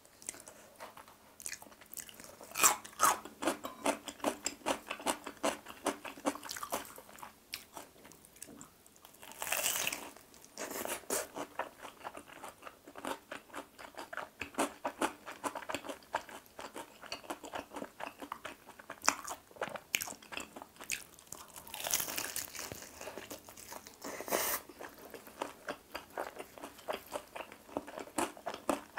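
Crunching and chewing of crispy fried chicken drumsticks: dense crackling from the crisp breading between bites, with a few louder bursts of crunching.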